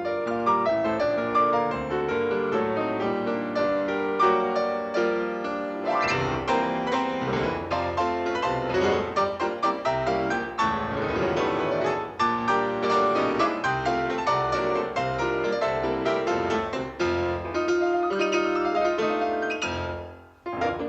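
Piano music from a cartoon soundtrack: fast, busy runs of notes, briefly dropping away shortly before the end.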